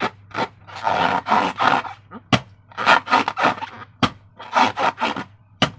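Slime being squeezed and worked by hand, a quick run of wet, squishy squelches about two or three a second, with a few sharp clicks in between.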